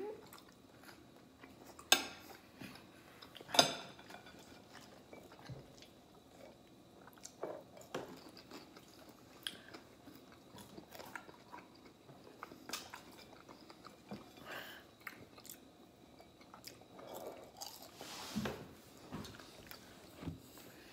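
Quiet mealtime sounds: chewing and crunching on steak and fresh-cut french fries, with scattered clinks of forks and knives on plates. Two sharp clinks, about two and three and a half seconds in, are the loudest.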